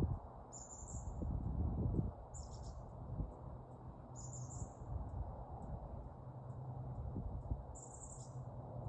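A bird gives four short, high calls a couple of seconds apart, over a steady low rumble.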